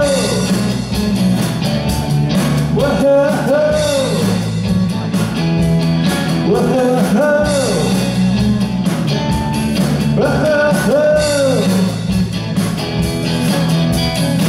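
Live rock band playing, with drum kit, bass and electric guitar, through a hall's PA. A rising-and-falling melodic phrase comes back about every three to four seconds over a steady bass line.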